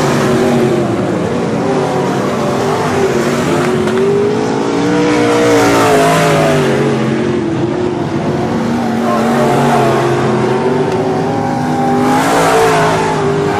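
Several IMCA Modified dirt-track race cars' V8 engines running hard at racing speed, overlapping pitches rising and falling as cars go by, with the loudest passes about six seconds in and near the end.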